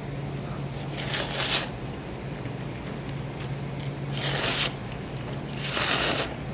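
A person slurping spicy instant cup noodles, three times: one about a second in, then two close together near the end, each a noisy rush lasting about half a second.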